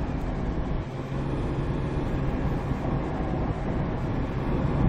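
Inside the cab of a Hyundai Porter 2 truck driving at road speed: steady diesel engine drone with road and tyre noise.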